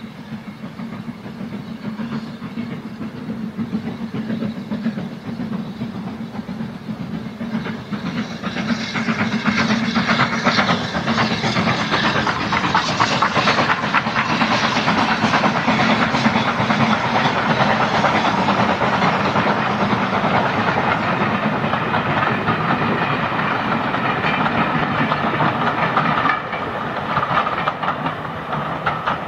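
BR Standard Class 9F 2-10-0 steam locomotive passing with a train of coaches: its exhaust and running grow louder as it approaches, stay loud as it goes by, then ease near the end as the coaches roll on along the rails.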